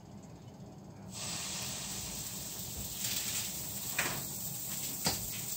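Pancake batter sizzling in a hot frying pan, a steady hiss that starts about a second in as the batter goes in. Two light knocks near the end.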